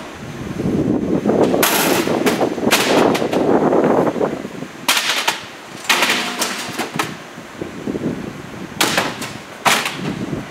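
Industrial shredder crunching a load of computer equipment and cardboard boxes. A heavy grinding rumble in the first few seconds gives way to clusters of loud, sharp cracks and snaps as hard plastic casings break.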